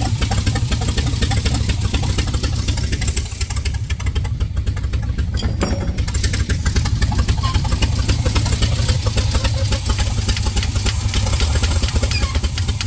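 Square-body dump truck's gasoline engine running steadily with its carburetor open. The carburetor's float needle is sticking and letting fuel push out past it, so the engine is running flooded.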